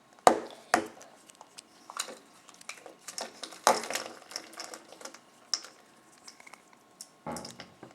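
Small plastic toy pieces clicking and tapping as they are handled and fitted together, with scattered light clicks and faint rustling between them.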